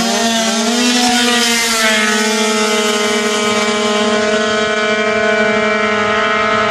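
Two tuned two-stroke racing scooters, a Yamaha Aerox and a Piaggio Zip, launching off the start line at full throttle. The engine pitch climbs sharply for about the first second and a half and then holds a steady, high whine as they speed away.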